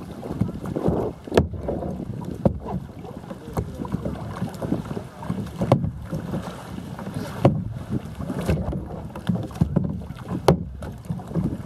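Water sloshing and lapping against a plastic kayak hull as it moves through shallow water, with several sharp knocks a second or two apart and some wind on the microphone.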